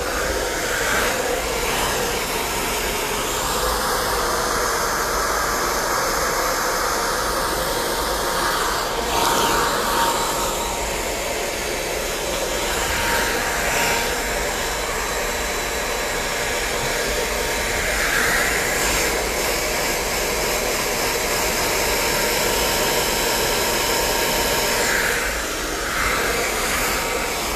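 Hand-held hair dryer fitted with a diffuser, running steadily, its sound shifting a little as it is moved through the hair.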